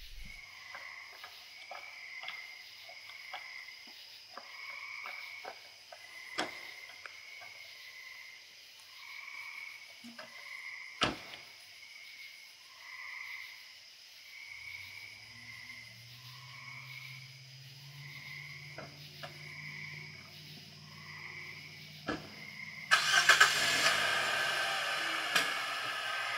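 Night ambience of insects chirping in a steady pulsing rhythm, with a few sharp clicks and a low steady hum coming in about halfway. Near the end a car starts up suddenly and much louder, then keeps running.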